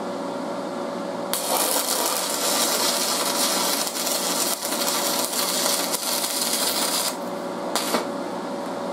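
Stick welding arc at 110 amps on a cellulose-coated electrode. It strikes about a second and a half in and sizzles steadily for nearly six seconds, then breaks off, with one brief re-strike near the end. The amperage is running hot, enough to burn through the plate if travel slowed.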